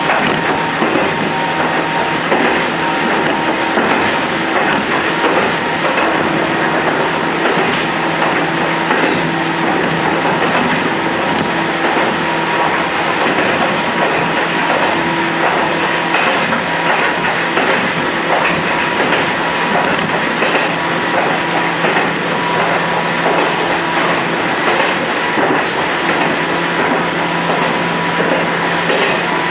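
Toyama Chihō Railway 14760-series electric train running along the track at steady speed: a constant rumble of wheels on rail with a steady hum from the drive.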